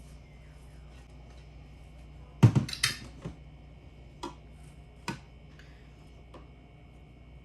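Dishes and utensils clinking and knocking: a loud knock with a short clatter about two and a half seconds in, then a few single clicks.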